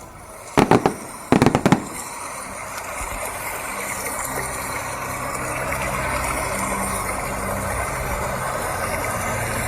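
Fireworks shells bursting: a quick cluster of sharp bangs in the first two seconds. After that comes a steady rumble of noise that slowly grows louder.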